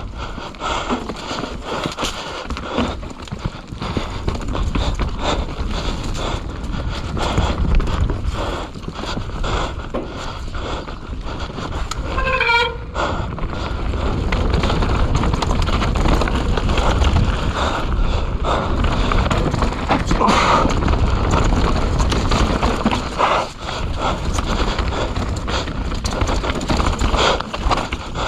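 Mountain bike riding fast down a wet trail: a steady rush of wind and tyre noise with constant clattering and rattling from the bike over rough ground. A brief squeal about twelve seconds in.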